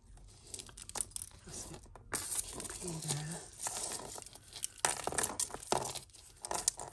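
Tangled costume jewellery being handled: beads and metal chain clicking against each other and a ribbon rustling as a beaded necklace is pulled apart, in many short clicks and rustles that get busier about two seconds in.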